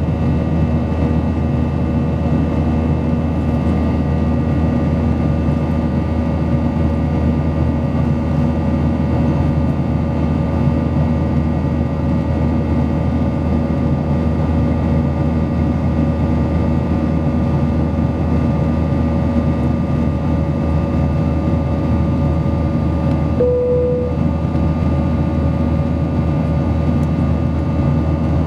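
Steady cabin noise of a Boeing 737-800 in flight: a deep rush of air with the steady drone and whine of its CFM56-7B engines. A brief single tone sounds once near the end.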